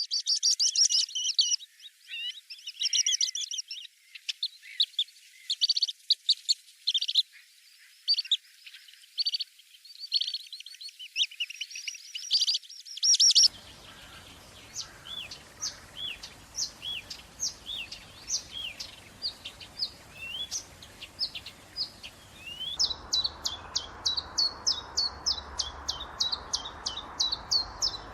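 Small birds chirping and twittering in short, high calls, many of them quick downward-sliding notes. About halfway through, a steady background hiss comes in, and near the end the chirps turn into a fast, even run of short repeated notes.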